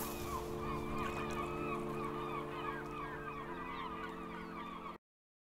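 A steady, held low chord with many short chirping bird calls over it; the chord shifts slightly a little past three seconds in, and everything cuts off abruptly near the end.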